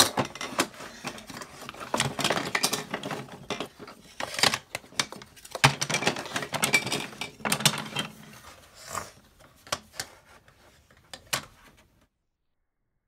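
Plastic Lego minifigures and bricks clicking, tapping and clattering on a tabletop as they are handled, in an irregular string of sharp knocks. The sound cuts off suddenly about twelve seconds in.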